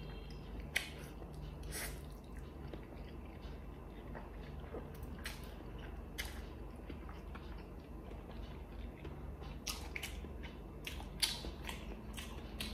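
Close-miked eating of stir-fried instant noodles: wet mouth smacks and chewing clicks at irregular intervals, coming thicker near the end, over a steady low hum.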